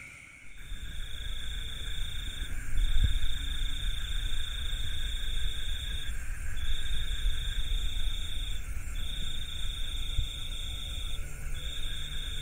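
Cricket trilling: one steady high-pitched trill in stretches of about two to three seconds with short breaks, starting about half a second in. Under it a low rumble of handling or wind noise on the phone's microphone.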